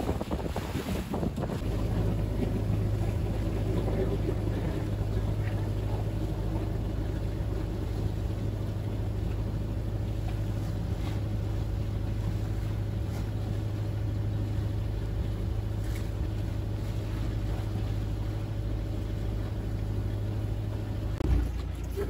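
A motorboat's engine drones steadily, with wind noise and rushing water over it. The drone starts about two seconds in and breaks off with a short bump near the end.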